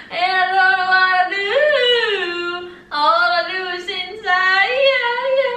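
A woman's voice singing loudly in two drawn-out phrases, with a short break about three seconds in; the notes are held long and slide up and down in pitch.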